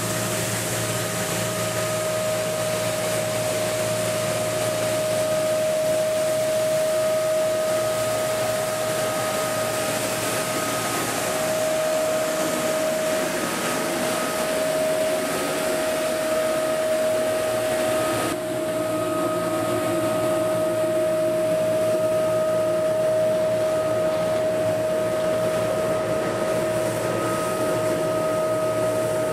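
Tecnosystem TS 6000 road sweeper working behind a road milling machine: a steady machine din with a constant high whine through it. The hiss eases a little just past halfway.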